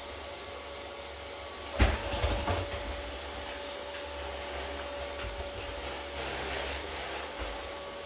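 Neato D7 robot vacuum running off-screen with a steady whining hum. A sharp knock comes about two seconds in, followed by a few smaller knocks.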